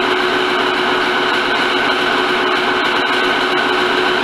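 Motor-driven alternator set running at steady speed: an even machine drone with a constant hum tone and a higher whine that do not change.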